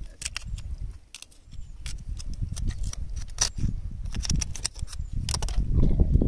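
Metal blade chipping and scraping rock oysters off shoreline rock: irregular sharp clicks and taps of steel on shell and stone, over a low rumble that grows loudest near the end.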